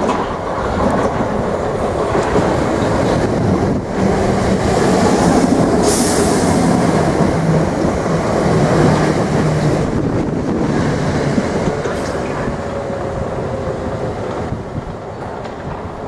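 Electric multiple-unit passenger train running through the station. Its wheels rumble and clack on the rails over a low steady hum, and there is a short sharp hiss about six seconds in. The sound swells toward the middle and a faint falling whine trails off near the end.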